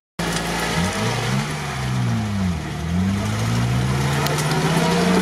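Off-road 4x4's engine revving as it works through mud. The revs dip and climb again about two and a half seconds in, then hold steady.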